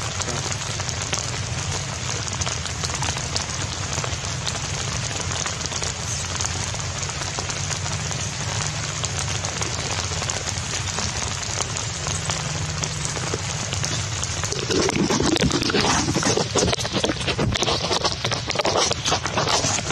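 Steady rain falling on wet grass and stone. About fifteen seconds in it grows louder and more uneven, with a run of sharp crackles.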